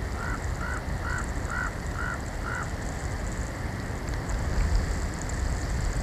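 Steady wind rumble and hiss from the snowstorm on the outdoor microphone. Over it, a bird gives six short, even call notes about half a second apart in the first half.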